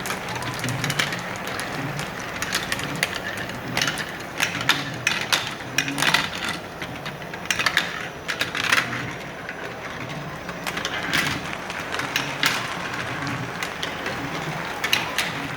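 Marbles clicking and clattering against one another and the track in rapid, irregular clusters, over a steady low background hum.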